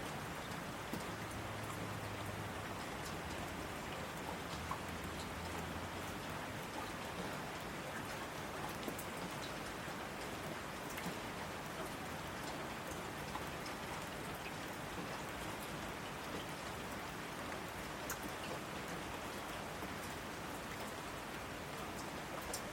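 Steady rainfall, a continuous even hiss of rain with scattered individual drops ticking through it.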